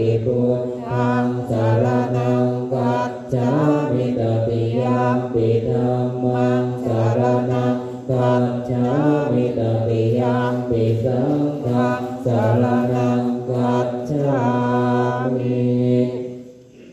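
Group of Thai Buddhist monks chanting together in unison, a low near-monotone recitation with short breaks for breath. The chant stops near the end.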